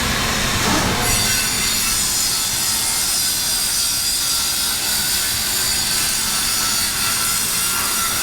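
A power woodworking machine, such as a saw cutting wood, runs steadily with a high-pitched whine over a hiss. It starts about a second in.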